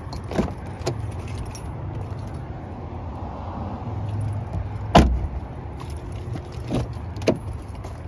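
A 2018 Mini 5-door's doors being worked by hand: clicks of the rear door handle and latch early on, a solid door-closing thud about five seconds in, then two sharp latch clicks as the front door is opened, over a low steady hum.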